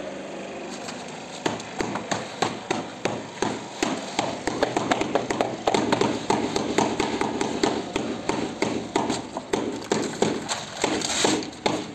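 Rapid tapping as a sheet of pool mosaic tile is beaten into the combed tile adhesive with a flat float, several taps a second, starting about a second and a half in.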